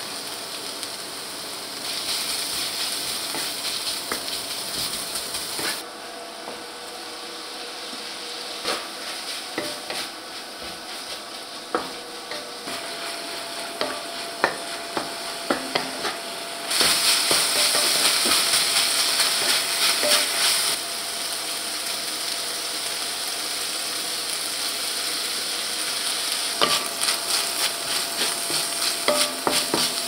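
Bacon, onion and shrimp sizzling in a cast-iron wok while a wooden spatula stirs them, knocking and scraping against the pan in scattered clicks. The sizzle grows louder a little past halfway, then settles back.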